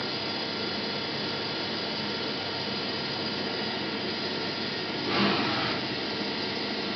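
Mazak Quick Turn 8 CNC lathe running under power: a steady machine hum with several constant whining tones, and a brief louder rush of noise about five seconds in.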